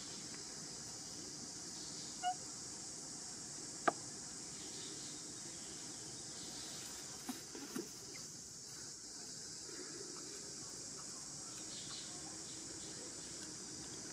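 Steady high insect drone, with a short pitched squeak a little over two seconds in, a sharp click near four seconds, and a few soft knocks past halfway.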